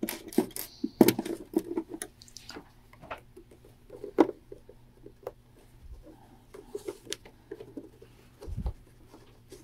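Hands handling and pinning quilt binding fabric: irregular light rustles and small clicks, with a soft low thump near the end.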